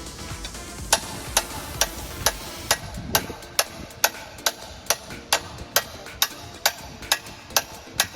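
A steady series of sharp taps or knocks, about two a second, starting about a second in.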